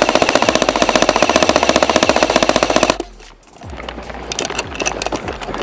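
Airsoft electric gun firing one long full-auto burst, a rapid, even rattle that stops abruptly about three seconds in. Softer irregular clicks and rustling follow.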